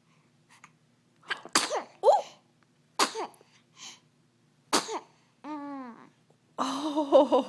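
A baby sneezing three times, short sharp sneezes each with a quick intake before it, about a second and a half apart, followed by a brief rising-and-falling vocal sound.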